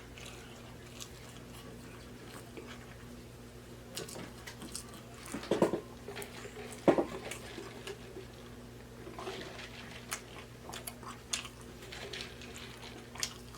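Close-miked chewing of a mouthful of fast-food sandwich: soft wet clicks and smacks, with a few louder ones about five and a half and seven seconds in.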